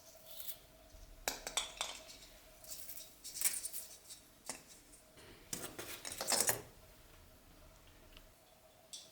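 Small hard objects clinking and rattling as they are handled, in four short bursts of clicks with pauses between.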